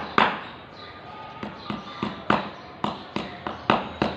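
A series of sharp knocks or taps, about a dozen, irregularly spaced at roughly two to three a second.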